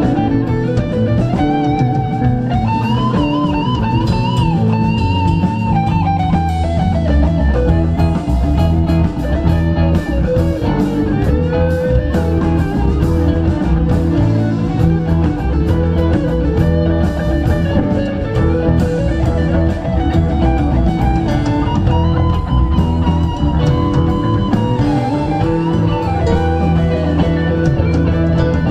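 A live rock band plays with electric guitars, bass and drum kit. Bending, wavering melodic lines ride over a steady bass and drums.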